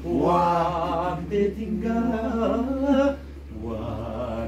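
A voice singing unaccompanied, with wavering held notes, dropping to quieter voices about three seconds in.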